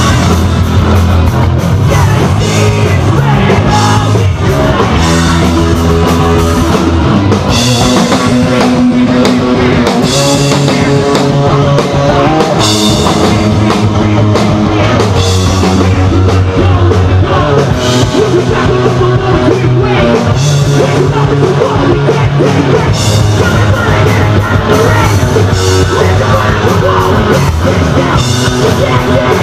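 Hardcore punk band playing live at full volume: bass guitar, electric guitar and drum kit, with shouted vocals.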